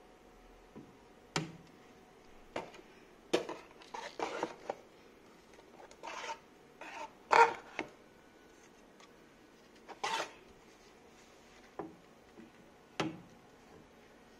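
Handling noise as a Formlabs Form 3 build platform is lifted out of its cardboard box and fitted into the printer: a dozen or so separate knocks, clicks and scrapes of hard plastic and cardboard, the loudest about seven seconds in.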